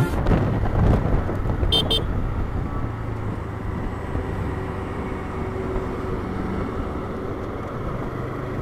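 TVS Raider 125 motorcycle being ridden, its engine running steadily under road and wind noise. Two short horn beeps come about two seconds in.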